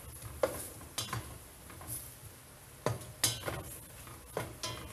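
A cooking utensil clinking and knocking against the inside of a stainless steel pot while stirring the pot's contents: about half a dozen sharp knocks, with soft scraping between them.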